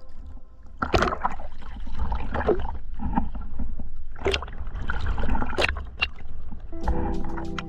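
Water sloshing and splashing with gurgling, in irregular surges over a low rumble. Background music comes back in near the end.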